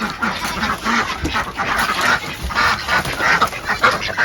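A group of domestic waterfowl calling over one another in rapid, repeated quacks and honks.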